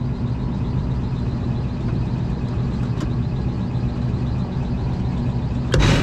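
Packaged HVAC unit running with its supply blower fan on, a steady low mechanical hum. A brief knock comes near the end.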